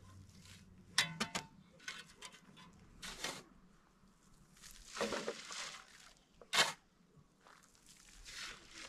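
A shovel scraping into a pile of sand and gravel and tipping the loads into a steel wheelbarrow: a string of separate scrapes, gritty clicks and short hissing pours.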